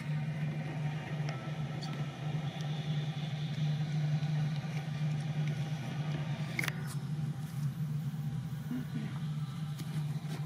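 A steady low mechanical hum, such as a motor running, with one sharp click about two-thirds of the way in.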